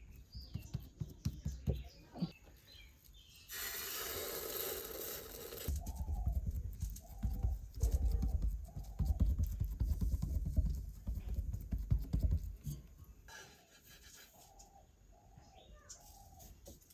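Hands patting and slapping roti dough flat on an oiled clay plate: a run of soft, uneven slaps and thuds. A string of short, repeated high calls sounds in the background.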